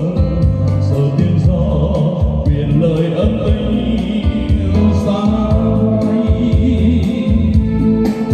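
A Vietnamese song with singing over a heavy bass line, played loud through a large event PA sound system.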